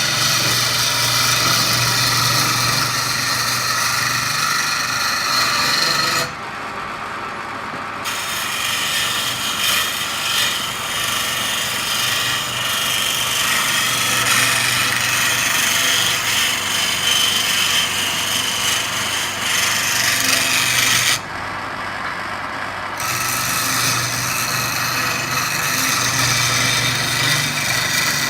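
Wood lathe running with a turning tool cutting the spinning wood: a steady scraping over the motor's low hum. Twice the scraping drops out for a second or two while the lathe keeps running.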